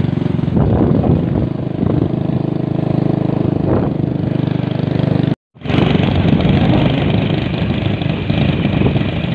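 A vehicle engine running steadily. A brief cut to silence comes about five and a half seconds in, after which the engine returns with more hiss on top.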